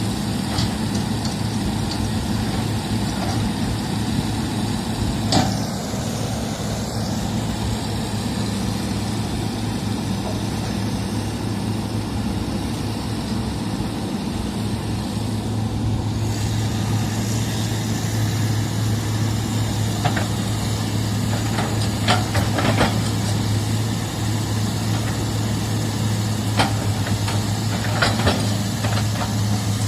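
Heavy machinery's diesel engine running steadily at a low, even drone, with a few sharp knocks, one about five seconds in and several more in the second half.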